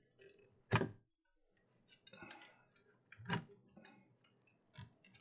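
Wire connectors being pulled off terminals inside a sheet-metal battery charger case: a handful of short sharp clicks and scrapes of metal and plastic, the loudest about a second in and again near the middle, with soft rustling of wire between them.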